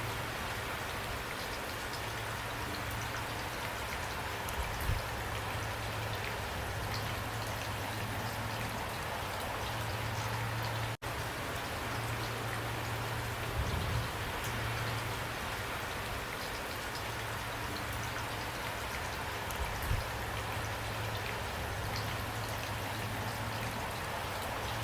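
Steady rain falling, with individual drops ticking over an even hiss and a low hum underneath. It cuts out for an instant about eleven seconds in.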